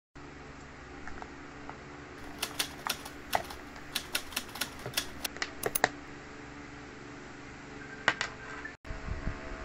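Small hard objects being handled on a desk: irregular sharp clicks and taps, most of them about two to six seconds in and two more near the end, over a steady low hum.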